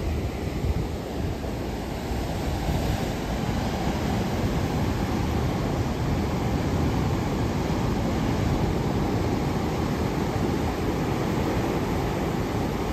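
Heavy ocean surf breaking and washing over a rocky shore in a steady rush, with wind buffeting the microphone.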